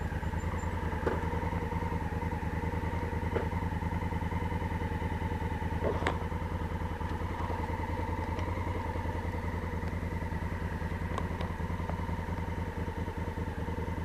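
2016 Honda Africa Twin DCT's parallel-twin engine idling steadily, with a few faint clicks over the top.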